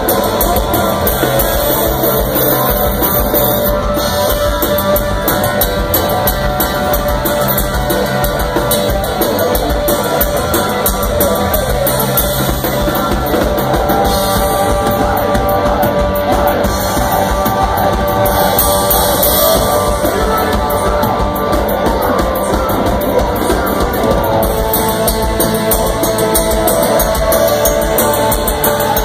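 Live punk rock band playing loud: electric guitar, accordion and a drum kit together.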